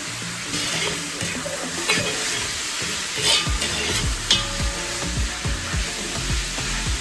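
Vegetables sizzling as they fry in a hot pot, stirred with a few scraping strokes of the spoon. Background music with a low bass beat comes in about halfway.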